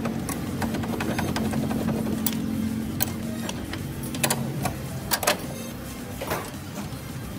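A steady mechanical hum, with a few sharp metal clinks between about four and five and a half seconds in as strut bolts are fitted into the steering knuckle.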